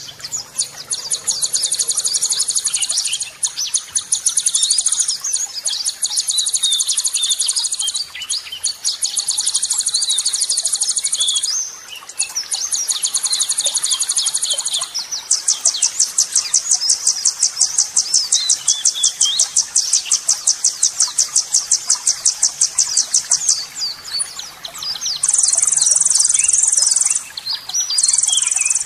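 Burcil songbird singing harsh, high trills of rapidly repeated notes ('tembakan kasar'), in phrases broken by short pauses. One long unbroken trill runs through the second half.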